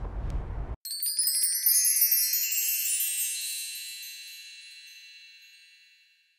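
Low wind rumble on the microphone cuts off abruptly under a second in. A shimmering wind-chime sound effect follows: a rapid cascade of high, bell-like tinkles that rings on and fades away over about five seconds.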